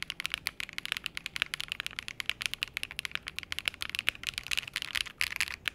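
Fast typing on an aluminium-case 65% mechanical keyboard: a rapid, uneven run of sharp clacking keystrokes, many per second.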